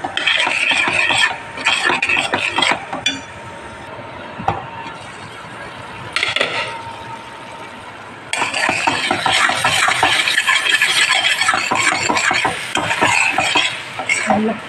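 A spoon stirring and scraping thick tomato masala paste with spice powders in a stainless steel pan on the stove. There are a few short bouts of stirring at first, a pause, then steady, continuous stirring from about eight seconds in.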